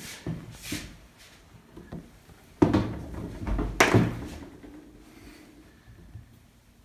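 Handling knocks of a scrubbing broom with a phone strapped to it against a wooden tabletop: a few light clicks, then two sharp thuds a little over a second apart.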